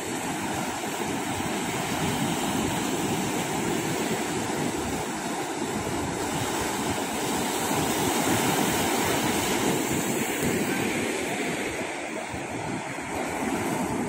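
Ocean surf breaking and washing up a sandy beach: a steady rushing of water that swells a little around the middle and eases briefly before the end.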